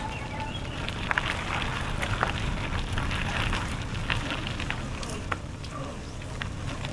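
Bicycle riding along a trail: a scatter of short crackling clicks and rattles from the tyres and bike over a steady low rumble of wind on the microphone.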